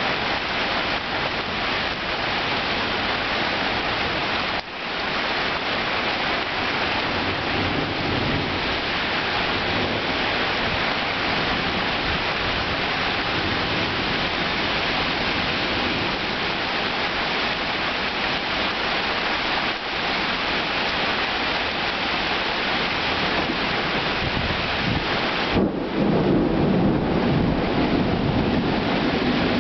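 Heavy rain pouring steadily in a severe thunderstorm, with a rumble of thunder rising near the end.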